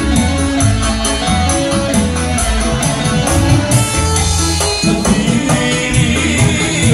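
Loud amplified music with a steady beat and evenly spaced high jingling percussion over bass notes, with men singing along into microphones.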